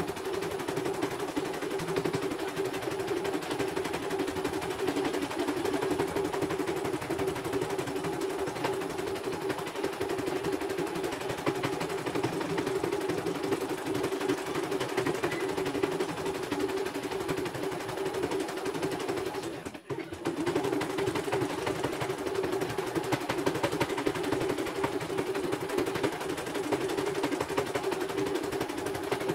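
CNY portable embroidery machine stitching out a design: rapid, steady needle clatter over a motor hum, with the hoop moving the fabric. The machine stops briefly about twenty seconds in, then runs on.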